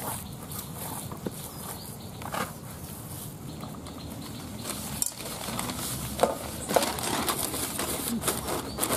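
Soft handling sounds of dough in a plastic basin. From about halfway, a sheet of newspaper rustles and crackles, with several sharp crinkles, as it is spread over the basin.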